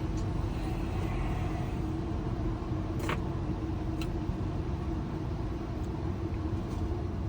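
A steady low mechanical hum with a constant tone, like an engine idling, with a few short sharp clicks, the clearest about three seconds in and another a second later.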